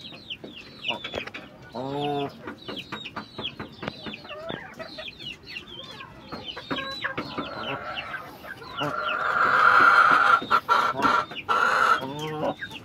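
Game chickens clucking, with many short, high, falling chirps throughout. A low cluck comes about two seconds in and another near the end, and a loud drawn-out call lasting about three seconds starts about two-thirds of the way through.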